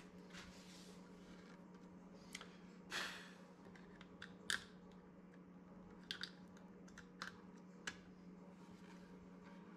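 Scattered light clicks and taps, with a brief scrape about three seconds in and a sharper click at about four and a half seconds, from handling a slab of ash wood and the clock-kit movement fitted to its back. A faint steady hum runs underneath.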